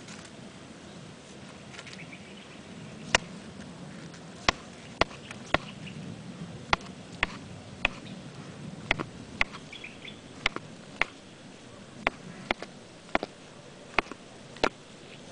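Male tortoise ramming the female's shell in courtship: about nineteen sharp shell-on-shell knocks at uneven intervals, one or two a second, starting about three seconds in.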